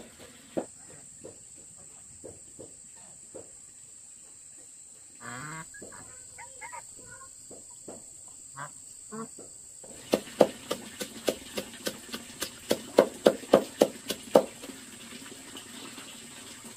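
A series of short sharp knocks or taps, sparse at first, then coming quickly and louder from about ten seconds in until near the end. There are a few brief wavering high sounds in the middle.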